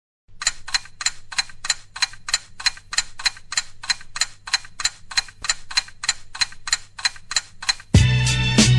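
Steady clock-like ticking, about three sharp ticks a second, over a faint low hum. About eight seconds in, loud hip-hop music with a heavy beat comes in.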